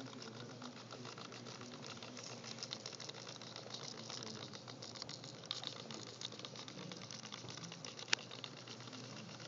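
Small plastic-geared GWS S03T hobby servos of a pan-and-tilt camera head whirring and chattering in short stop-start moves as the head tracks a red object, with one sharp click about eight seconds in.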